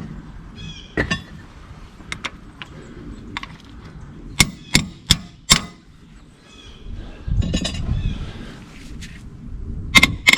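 Hand tools clicking and clinking on metal while cylinder head bolts are loosened: four sharp clicks about halfway, a short rattling stretch, then a quick cluster of clinks near the end.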